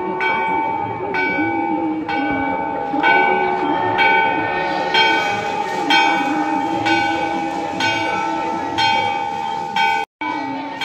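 Temple bell struck about once a second during the aarti, each stroke ringing on over a steady ringing tone, with voices chanting underneath. The sound cuts out briefly near the end.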